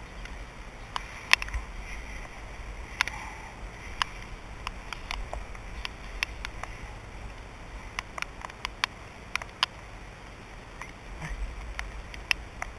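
Raindrops ticking irregularly on the camera housing, about two sharp ticks a second over a faint steady hiss of light rain.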